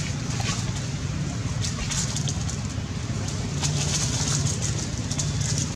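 Dry fallen leaves rustling and crackling in quick, irregular bursts as young macaques scramble and wrestle on the leaf litter, over a steady low rumble.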